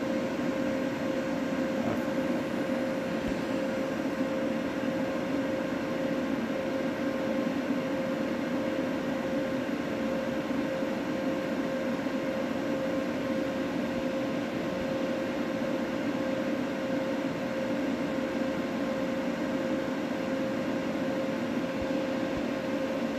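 Steady machine hum with a constant mid-pitched tone, unchanging throughout.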